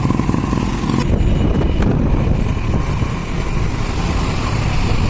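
Tipper truck's diesel engine running steadily under way, a loud low rumble with road and wind hiss that eases about a second in.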